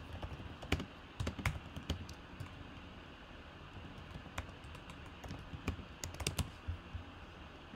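Typing on a computer keyboard: scattered key clicks in two short runs with a lull in the middle.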